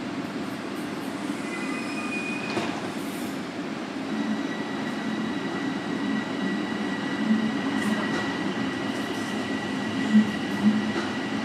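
Toronto Rocket subway train running, heard from inside the car: a steady rumble, with a steady high squeal from about four seconds in and two short thumps near the end.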